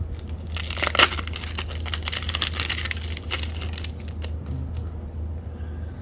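The wrapper of a baseball card pack being torn open and crinkled, with a sharp crackle about a second in. The rustling dies down after about three and a half seconds, over a steady low hum.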